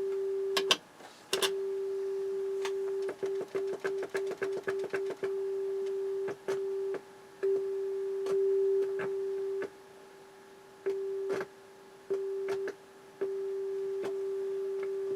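Steady test tone playing through a JVC JA-S71 amplifier, cutting out and clicking again and again as its switches are worked, with a rapid run of crackling dropouts a few seconds in. The switch contacts are dirty, though the technician judges them not an issue.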